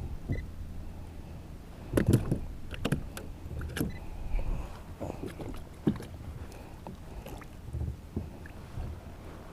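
Knocks and clatter on a fishing kayak over a steady low rumble: a cluster of sharp knocks about two to four seconds in, and one more sharp knock near six seconds.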